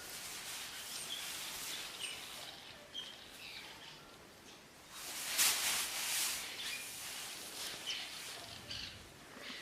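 Outdoor ambience with scattered short bird chirps and a few light clicks. About five seconds in comes a louder burst of noise lasting over a second.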